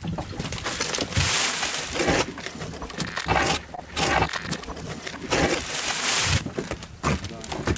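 Fishing net and rope being handled in a small inflatable boat: a series of irregular rustling swishes, the longest about halfway through.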